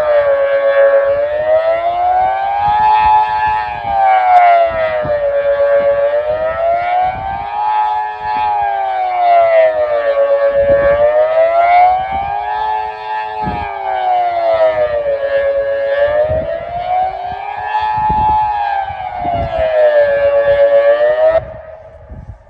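Kockum Sonics Delta 4 electronic siren, driven by the old original grey Delta controller, sounding the Swiss general alarm wail in a rough voice: a harsh tone that rises and falls about every five seconds. It cuts off abruptly near the end. Strong wind buffets the microphone throughout.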